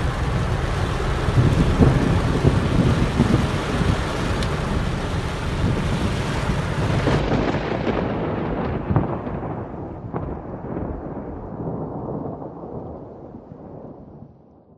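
Thunder rumbling with rain falling, loudest in the first half; from about halfway it grows duller and fades out to silence at the very end.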